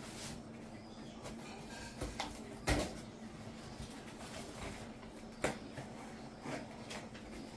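Parcel and packaging being handled and opened by hand: scattered knocks and rustles, the two loudest about three and five and a half seconds in, over a faint steady hum.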